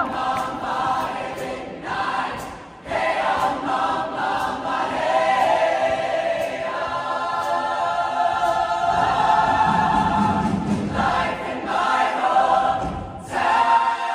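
Mixed show choir singing in harmony, with short breaks in the sound about three seconds in and again near the end.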